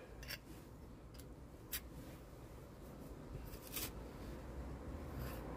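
Faint, scattered scrapes and small clicks of a pointing tool working lime mortar into the joints of a cobbled wall panel.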